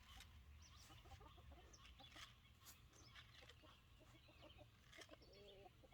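Faint clucking of a flock of laying hens, with short scattered calls and a few small clicks.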